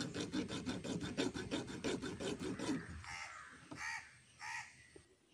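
A hard lotus seed rubbed quickly back and forth on a flat steel file, a fast run of rasping strokes, several a second, that stops about three seconds in. This scarifies the tough seed coat so that water can get in and the seed can sprout. Three short bird calls follow.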